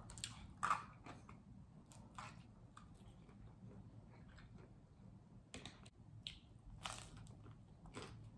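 A person chewing toasted sourdough cheesy bread, with scattered faint crunches and a louder crunch about a second in.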